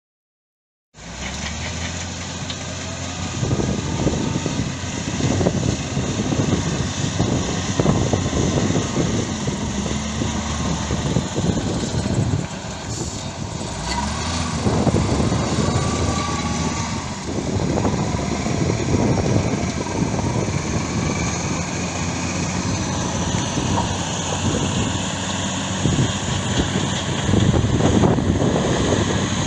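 Heavy diesel construction machinery running continuously, engine pitch rising and falling now and then. The sound starts abruptly about a second in.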